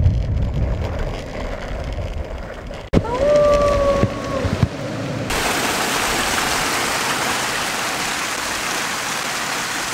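Fountain water pouring down a stone wall: a steady hiss of falling water that comes in suddenly about five seconds in. Before it, a low rumble and a short held tone that rises and then holds for about a second.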